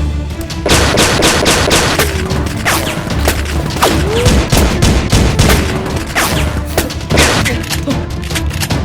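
Rapid bursts of gunfire, many shots close together, over action background music with a pulsing bass.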